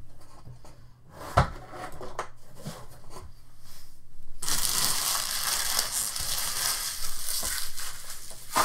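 A sharp knock about a second and a half in, then several seconds of packaging being crumpled and crushed, a dense crackling that stops just before the end.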